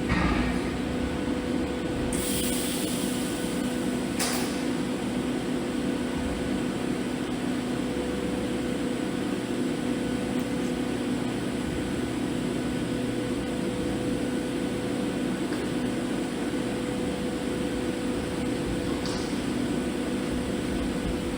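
Steady hum and hiss of TIG welding equipment, with a constant two-tone buzz, and a short high hiss about two seconds in.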